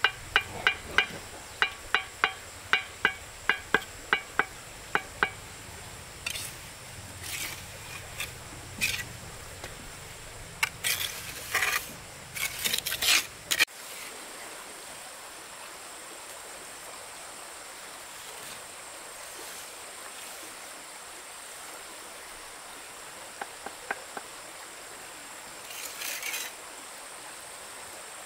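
A run of about fifteen sharp knocks, roughly three a second, for the first five seconds, then irregular scraping and rustling bursts. About halfway the background changes abruptly to a steady faint hiss, with a few small clicks and one more short rustle near the end.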